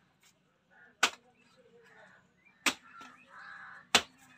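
A blade chopping into the husk of palmyra palm fruits (ice apples) to open them: three sharp strikes, roughly a second and a half apart.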